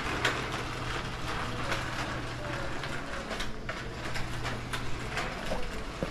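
Small plastic wheels of a pull-along shopping-basket trolley rolling over a tiled floor, with a steady rattle and rumble and many small clicks.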